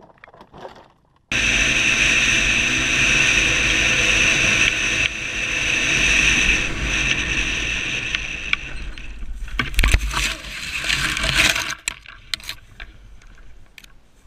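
A quad's engine running under throttle, heard through a helmet-mounted camera. About ten seconds in come knocks and scraping as the quad crashes and tips over, then the engine sound drops away suddenly, leaving faint rustling.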